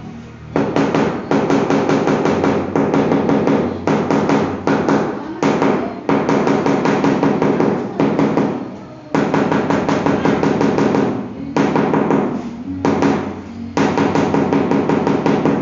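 A mallet tapping a large ceramic floor tile to bed it into fresh mortar. The taps come in quick runs, several a second, broken by brief pauses, and each one gives a low, slightly hollow knock off the tile.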